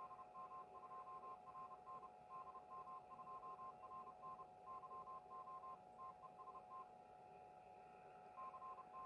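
Faint Morse code: a single tone near 1 kHz keyed on and off in dots and dashes, from a weak, fading received signal, over steady hiss and a constant lower hum-like tone. The keying pauses for about a second and a half near the end, then resumes.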